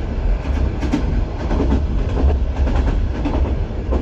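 Passenger train running along the track, heard from inside the carriage: a steady rumble with the clickety-clack of the wheels over the rail joints.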